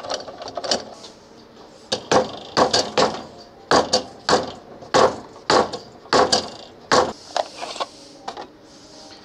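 Hammer blows on a wooden block, driving a keyless drill chuck onto its taper arbor on a drill press: a series of sharp knocks, about two a second, from about two seconds in until near the end, with a couple at the very start.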